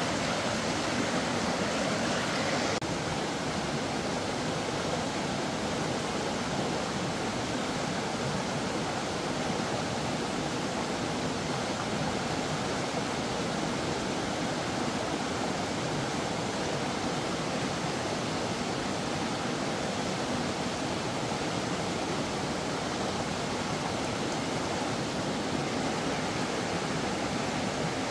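Steady rush of running water, like a stream, with the higher hiss easing slightly about three seconds in.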